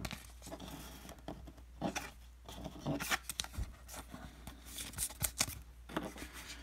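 Baseball cards being handled and set down on a table: scattered light taps and slides of card stock.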